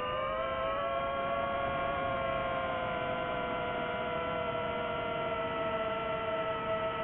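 DJI FPV quadcopter's motors and propellers whining: several steady tones together, the pitch drifting slowly up and down with the throttle.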